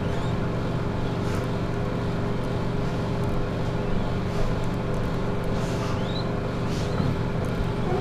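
Steady mechanical hum of a running motor, with several held tones; a faint, short rising squeak about six seconds in.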